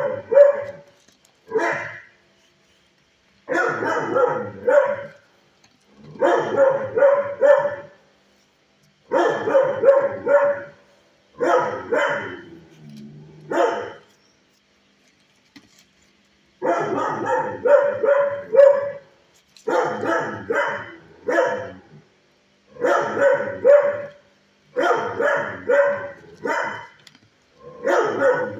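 Dog barking in repeated bursts of several quick barks, one burst every two to three seconds, with a pause of about three seconds midway.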